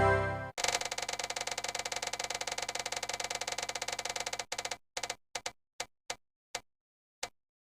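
A fast, even run of identical clicks, about ten a second, which then slows to a few widely spaced clicks and stops, like a ratchet or spinning wheel coming to rest.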